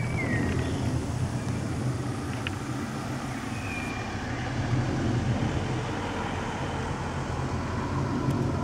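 Four-engine jet aircraft passing overhead, a steady low rumble that swells slightly midway. A few brief bird chirps sound above it, near the start and again a few seconds in.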